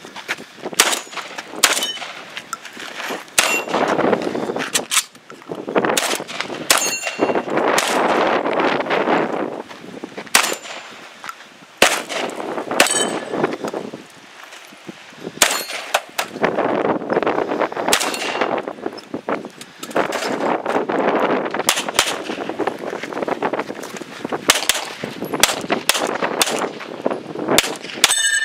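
Repeated rifle shots fired in quick strings, with steel targets ringing with a clang and ding after hits. The last shots come from a pistol.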